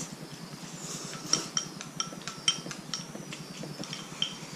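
Chopsticks and spoons clinking against porcelain bowls while eating, a string of light ringing clinks starting about a second in.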